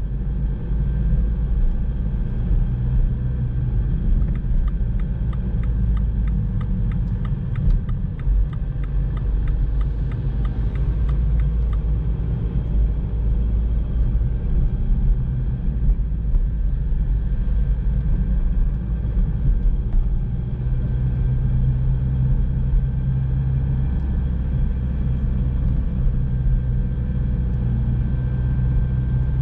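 A car driving at low speed, with a steady low rumble of engine and tyres on the road. The engine hum grows stronger about two-thirds of the way through, and faint regular ticking comes and goes in the first half.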